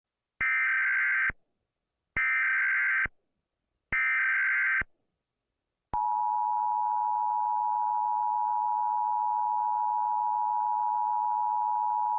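Emergency Alert System tones: three one-second bursts of SAME digital header data, about a second apart, then a steady two-note EAS attention signal that starts about six seconds in and holds. They open a Child Abduction Emergency (Amber Alert) broadcast.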